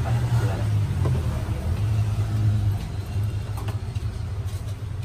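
A motor engine idling with a steady low drone.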